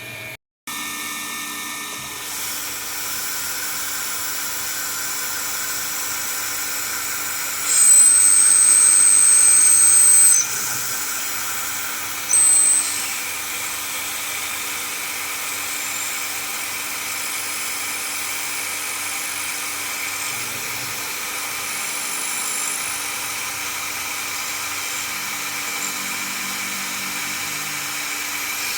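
Milling machine spindle running steadily while drilling a hole in a machined part. The bit cutting gives a loud, high squeal for about three seconds a third of the way in, and a short one soon after.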